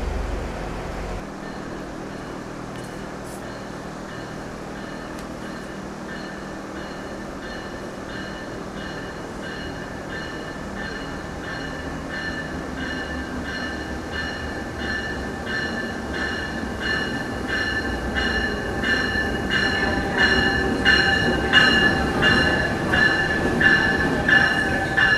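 A train running on the rails and growing louder. Over the last ten seconds there is a high pulsing squeal with regular clacks.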